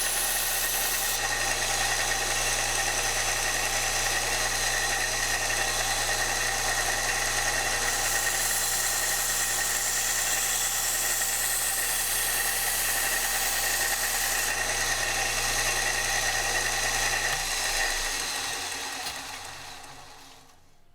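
Kalamazoo 1SM belt sander running with a 220-grit belt while a knife edge is ground on it: a steady motor hum under a broad grinding hiss. Near the end the motor is switched off and the belt winds down to a stop.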